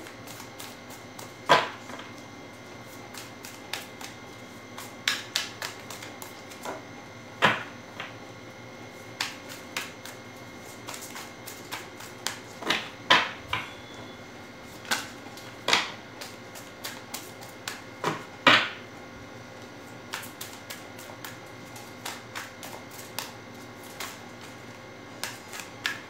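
A deck of tarot cards being shuffled by hand, the cards giving off irregular papery clicks and snaps, with about five louder snaps spread through.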